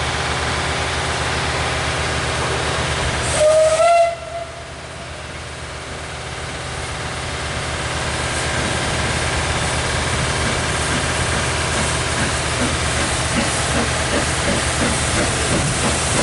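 Isle of Man Railway Beyer Peacock steam tank locomotives at a station: steady steam hiss, with one short, loud whistle blast a little over three seconds in. Afterwards the exhaust beats of a locomotive moving slowly grow gradually louder as it approaches.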